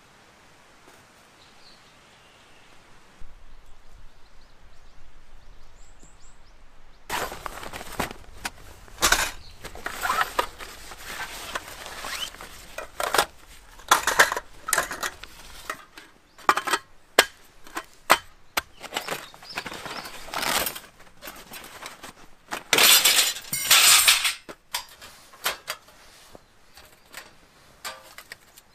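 Camping gear being unpacked by hand: irregular sharp clinks and clatters of metal kit mixed with the rustling of a fabric rucksack. They start about a quarter of the way in and are thickest a little after two-thirds of the way through.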